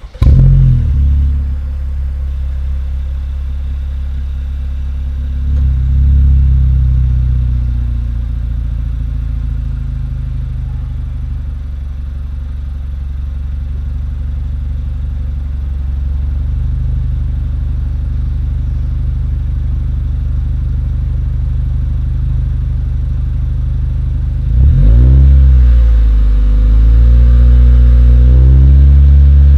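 Honda Vezel engine heard at the exhaust, starting up with a brief loud flare and then settling into a steady idle. About 25 seconds in it is revved, the pitch rising and falling, and it is then held at a steady higher speed.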